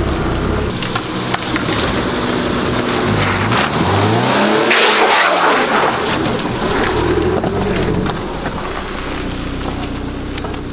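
Lifted Subaru Forester's flat-four engine pulling the car slowly over rough trail ground. Its note rises and then falls about halfway through, where it is loudest, as it passes close. Scattered sharp clicks from stones and twigs under the tyres.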